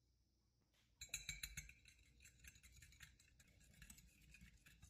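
Wire whisk beating egg yolks in a ceramic bowl: rapid clinking and scraping of the wires against the bowl. It starts about a second in and is loudest at first.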